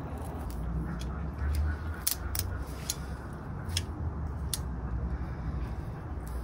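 Irregular crisp snaps and clicks of a nettle stem being split and its outer fibre peeled from the pith by hand, over a steady low rumble.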